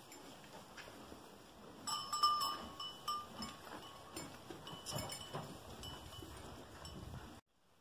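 Sheep and goats stirring and feeding in a straw-bedded barn stall, with rustling and a few light clinks and knocks, and a brief ringing clink about two seconds in. The sound cuts off suddenly near the end.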